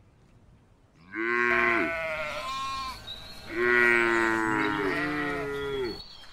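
Two long livestock calls: a shorter one about a second in, and a longer one from about three and a half seconds in, each falling in pitch as it ends.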